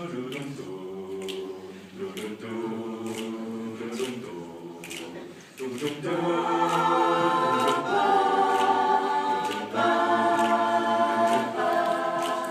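A cappella vocal group singing held chords in close harmony, with short regular clicks keeping time in the first half. The singing grows louder and fuller about six seconds in.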